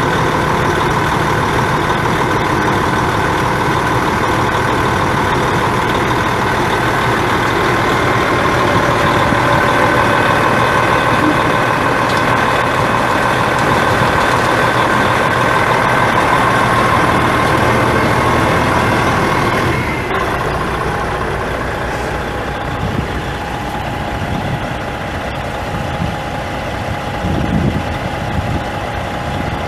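Detroit Diesel Series 60 12.7-litre inline-six diesel engine of a Freightliner dump truck running steadily at idle, with a steady whine over the engine. About two-thirds of the way through, the whine changes pitch and the sound gets a little quieter; a few low thumps come near the end.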